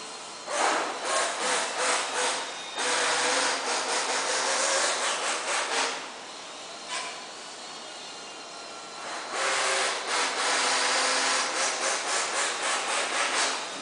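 A thin metal tool scraped and rubbed by hand against the metal die of a high-frequency PVC welding machine, in quick strokes. It comes in two long bursts, the first starting about half a second in and stopping around six seconds, the second starting around nine seconds and running until just before the end.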